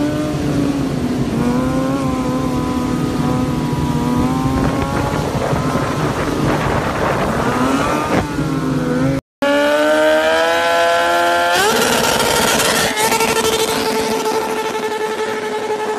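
Sport bike engines revving across several short clips: first an engine whose pitch rises and falls with throttle blips, then after a cut an engine accelerating in a steep rising whine and held at steady high revs over a loud hiss of spinning tyre during a smoky burnout.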